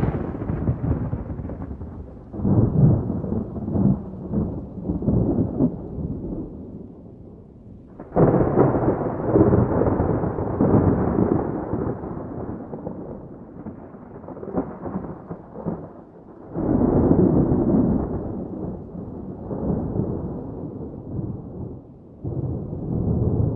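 Wind buffeting the microphone: an uneven rumble that comes and goes in gusts, with strong gusts starting suddenly about eight seconds in, again past the middle, and near the end.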